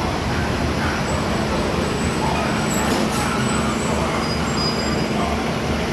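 Diesel express train standing at the platform with its engines idling in a steady low rumble.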